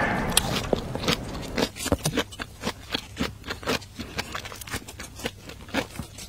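Close-up eating sounds: noodles slurped and chewed, with many irregular small wet clicks and smacks, opening with a louder slurp.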